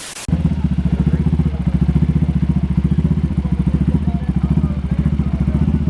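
Quad (ATV) engine idling loudly, with a fast, even pulse of exhaust beats. It cuts in abruptly a moment after the start.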